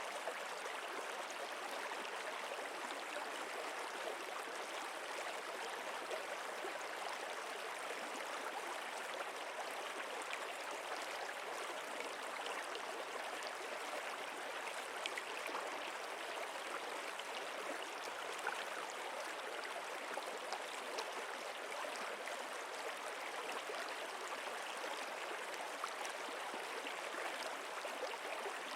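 Stream water flowing steadily, an even rushing with small splashing ticks.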